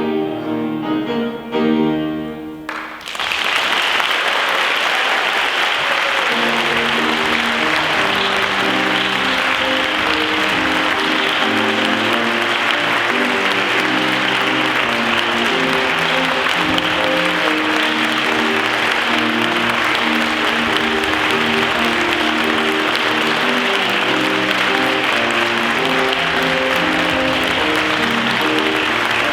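Instrumental music, then about three seconds in an audience breaks into steady applause that continues while the instrumental accompaniment keeps playing underneath.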